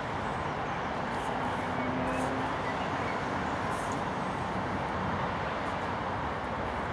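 Steady rushing background noise of distant road traffic, with a few faint, soft scuffs of European badgers foraging in loose soil.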